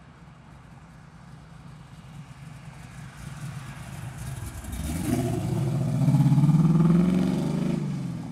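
1969 Chevrolet Camaro RS with a 502 cubic-inch big-block V8 driving past: a faint engine rumble that grows loud as the car accelerates by, its pitch rising, then drops away near the end.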